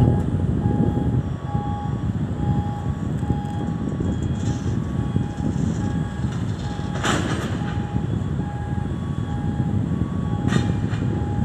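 A crane's warning beeper giving short, evenly spaced beeps at about two a second over a steady low rumble, with a couple of sharp clicks, about seven seconds in and near the end.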